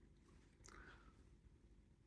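Near silence: room tone, with one faint, brief sound a little over half a second in.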